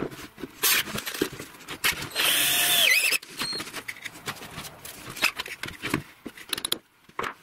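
Cordless drill boring into an MDF frame, running in one loud burst of about a second, its whine dropping in pitch as it stops. Sharp clicks and knocks of the drill and workpiece being handled come before and after.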